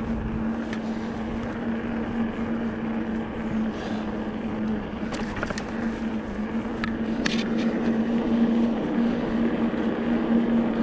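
Electric mountain bike motor whining at a steady pitch while riding, over wind and tyre noise, with a few sharp clicks around the middle.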